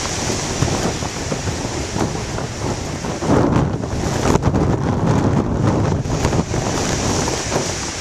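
Strong wind buffeting the plastic-wrapped camcorder microphone, over the rush of heavy surf breaking on rocks. The buffeting grows louder a little before the middle and stays up for a few seconds.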